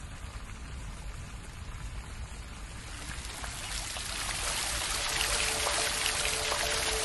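Running, splashing water, a fountain's steady spray and patter, growing louder about three seconds in. Near the end a steady held tone of background music comes in under it.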